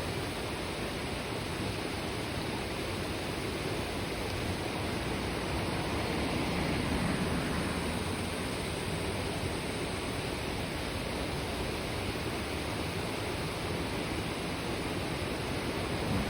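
Mountain river babbling over rocks: steady rushing and gurgling of shallow flowing water, swelling slightly about halfway through.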